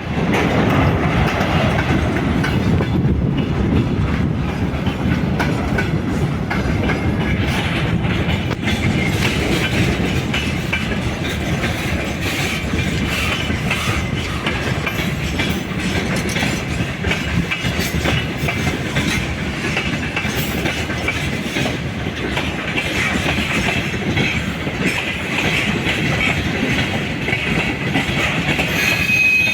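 Train running steadily, its wheels clicking over the rail joints over a continuous rumble. A faint high wheel squeal creeps in near the end.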